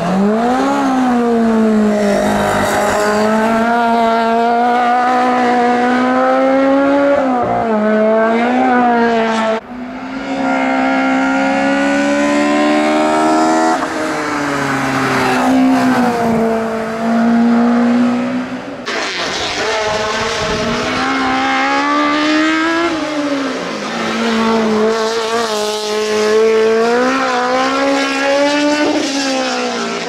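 Fiat 127 race cars' four-cylinder engines at full throttle, the revs climbing and dropping again and again with gear changes. The sound cuts abruptly to a different car about ten and again about nineteen seconds in.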